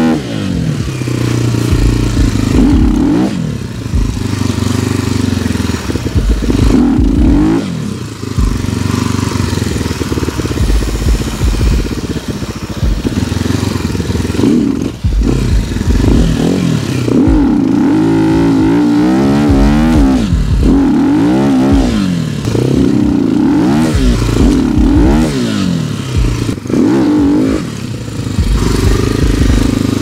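Sharmax RX300 enduro motorcycle's engine revving up and dropping back again and again, in repeated bursts, as the bike is worked to get it unstuck. The rear wheel is spinning in deep, heavy snow.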